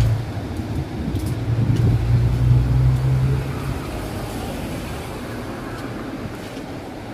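A bus's diesel engine running close by, a steady low drone that dies away about three and a half seconds in. Steady street-traffic noise remains under it and after it.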